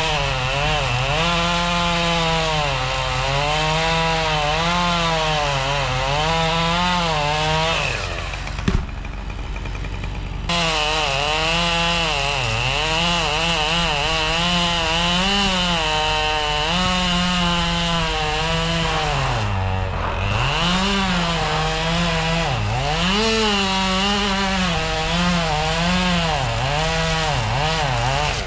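Chainsaw cutting wood, its engine pitch rising and falling as it bogs under load. It eases off about eight seconds in, with a short knock, then returns to full speed about ten seconds in and bogs down hard briefly about twenty seconds in.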